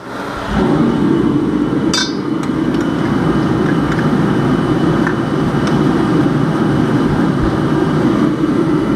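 Garage heater kicking on and running loud and steady, its blower noise building within the first half second. A single metallic clink about two seconds in.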